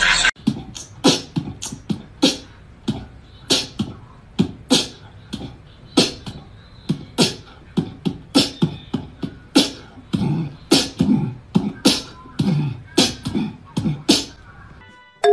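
A long run of short, sharp pops and clicks in an uneven rhythm, about two a second, with deeper thumps among them past the middle.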